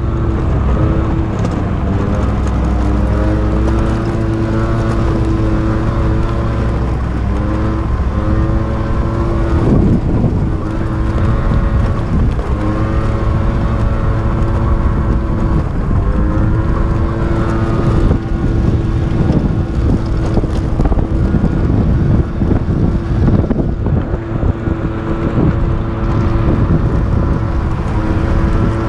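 Small 50cc motorbike engine running hard under way, its note dipping and then climbing again about ten and sixteen seconds in, with wind rumbling on the microphone.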